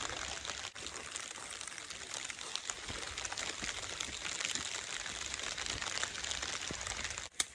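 Steady rain falling, a dense hiss of fine drop patter. Near the end it drops out for an instant, with one sharp click.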